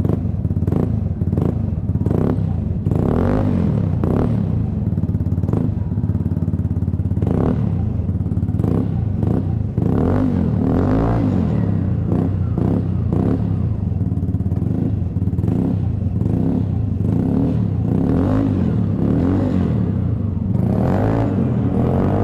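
Vespa scooter's single-cylinder four-stroke engine running through a Prospeed aftermarket exhaust with its dB killer removed, idling with repeated short throttle blips. The note is deep and smooth.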